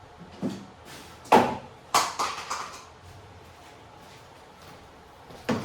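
Hard knocks and clunks of a gas can being handled at the generator, several in quick succession about one to three seconds in, then a quieter stretch and one more knock near the end.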